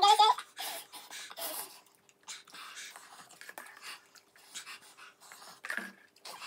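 Quick, hissy breaths and panting through the mouth, the heat-driven breathing of people eating very spicy instant noodles, with short mouth and eating noises; a child's laugh trails off just at the start.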